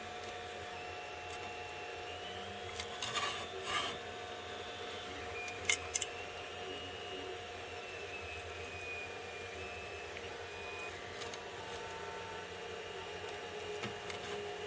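Hot soldering-iron tip rubbing and scraping on PLA plastic as it melts and smooths a weld seam, with a few short scrapes about three seconds in and two sharper ones about six seconds in. Under it runs a steady faint whine of several held tones.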